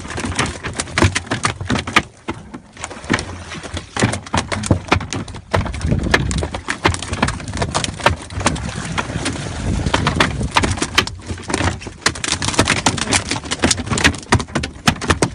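A boat under way on open water, with steady wind noise and many irregular sharp knocks.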